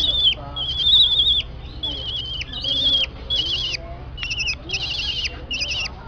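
A bird giving a run of about eight high, wavering squeaky calls, each dropping off at the end, coming closer together toward the end.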